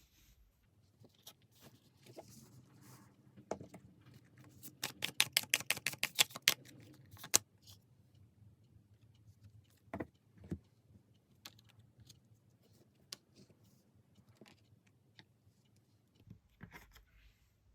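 Tarot cards being handled: a quick run of sharp card clicks lasting about three seconds, starting about four and a half seconds in, with scattered single clicks and taps before and after.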